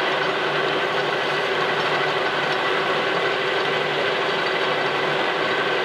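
Metal lathe running steadily with a brass stem turning in its chuck: a constant mechanical hum carrying several steady tones.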